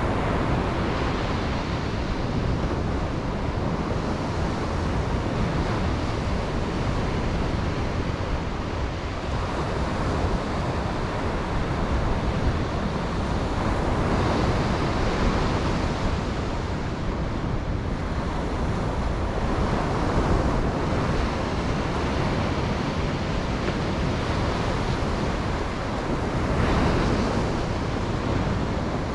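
Ocean surf washing on a beach, a steady rush with waves swelling and easing every few seconds, mixed with wind on the microphone.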